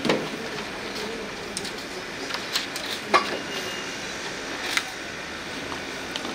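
Courtroom room noise: a steady hubbub with a faint murmur of voices, broken by a few sharp clicks or knocks, the loudest about three seconds in.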